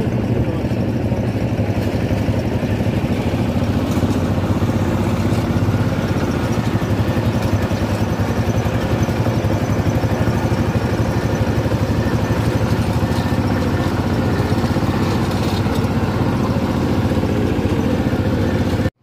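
A motor engine running steadily with an even, continuous rumble that cuts off abruptly near the end.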